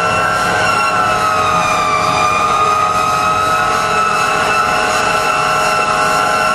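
Fire engine's Federal Signal siren held at a high, steady pitch, sagging slightly about two seconds in and then holding, heard from inside the cab over the truck's engine.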